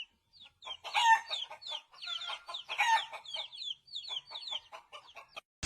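Chickens clucking in a quick, irregular run of short calls.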